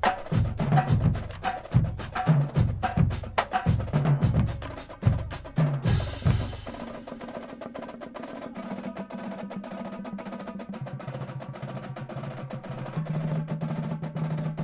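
Marching drumline of snare drums, quads and tuned bass drums playing a cadence. Loud accented strokes come first, then a crash about six seconds in. After that it drops to quieter fast rolls over ringing bass drum notes.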